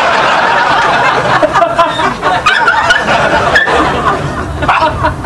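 Audience laughing, a dense crowd laugh.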